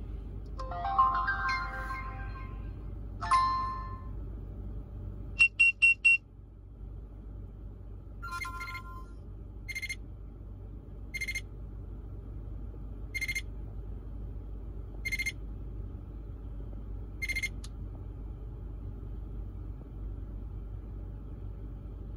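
Electronic alert tones from a DSM driver drowsiness-warning unit and its linked Mach Truck 5000 dashcam: a short chime melody about a second in and another brief chime soon after, the face-recognition setup sound, then a quick run of four high beeps. From about ten seconds, single short beeps sound every second and a half to two seconds: the drowsy-driving warning when the driver's eyes stay closed.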